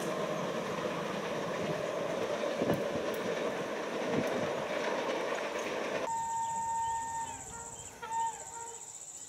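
Passenger coaches rolling away over the rails, a steady rumble of wheels on track. About six seconds in it cuts to a quieter scene with a steady high insect buzz and faint whistling tones.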